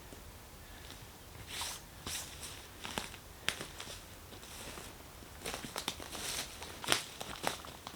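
Footsteps crunching and rustling on the forest floor, starting about a second and a half in, irregular steps roughly half a second apart.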